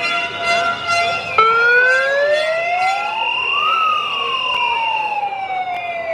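A siren winds up, its pitch rising smoothly for about two seconds, then slowly winds back down. Several steady, held tones sound before it starts.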